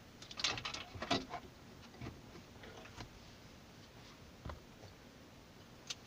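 Plastic wiring-harness connectors and cables handled behind a car stereo head unit while an antenna lead is plugged in: a quick cluster of small clicks and rustles about half a second to a second and a half in, then only a few faint ticks.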